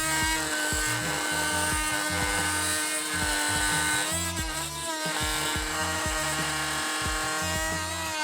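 Oscillating multi-tool with a carbide-tooth blade running with a steady high buzz. Its pitch dips briefly about four seconds in and again near the end, as the blade takes load.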